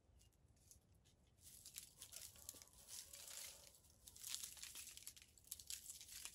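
Faint crackling rustle of dry leaf litter as a junglefowl rooster walks and scratches through it close by. It starts about a second and a half in and is busiest in the second half.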